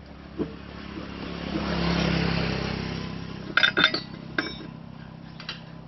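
A passing vehicle's engine noise, swelling up and fading away over about three seconds, with a few sharp metallic clinks near the middle.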